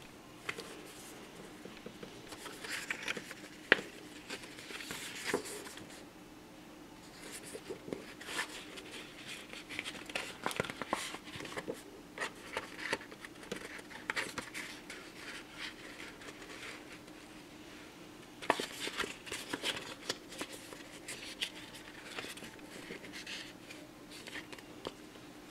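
A clear plastic 4x6 inch badge holder and a paper insert handled by hand: the plastic crinkling as it is flexed open and the card rustling as it slides in, with scattered light clicks and taps in three spells of activity and a sharp click about four seconds in.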